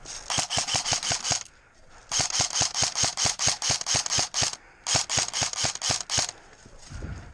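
Airsoft gun firing three rapid strings of sharp clicking shots, about seven a second, with short pauses between the strings.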